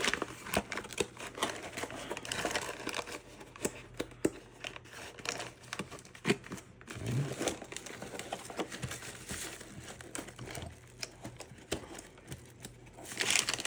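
Packaging crinkling and rustling as parcels and small parts are handled, with many small clicks and knocks.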